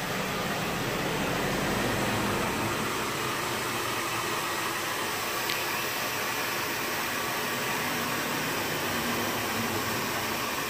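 A steady hiss of rushing air, with a faint click about five and a half seconds in.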